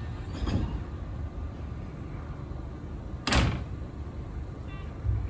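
Electric train's sliding doors closing with one sharp, loud thud about three seconds in, after a lighter knock near the start, over a steady background hum.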